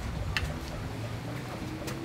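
A low steady hum with two light clinks of a metal ladle against a metal bowl of boiled eggs, one shortly after the start and one near the end.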